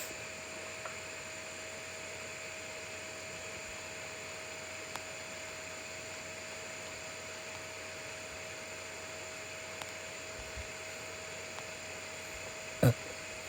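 Steady background hiss with a faint steady hum tone, and one short sharp click near the end.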